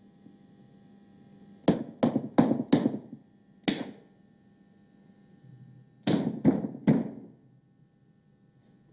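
Eight knocks as a plastic paint tub is struck down onto a thick, paint-laden surface on a metal-topped table: four quick knocks about two seconds in, one more a second later, and three near the end.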